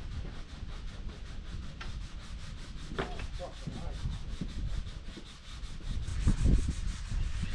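Sanding: abrasive paper rubbing a surface in quick, even strokes, several a second.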